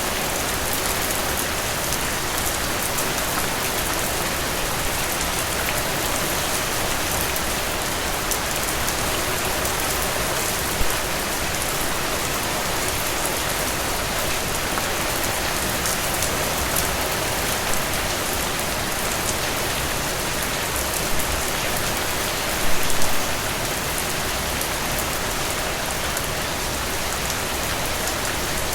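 Heavy rain falling steadily, a dense even hiss of drops with individual drop splats on top. A few brief louder drip or splash hits stand out about eleven seconds in and again around twenty-two seconds.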